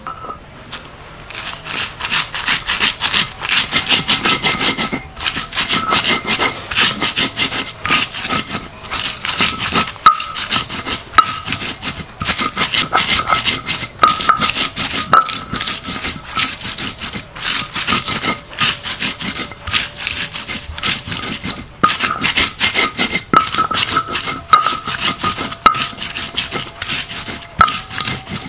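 Hands rubbing salt and lime into fresh anchovies in a bowl: rapid, continuous rubbing with a faint squeak recurring throughout.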